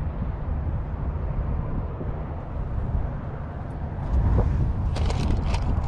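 Strong wind buffeting the microphone: a low rumble that grows louder about four seconds in, with a run of crackling rustles near the end.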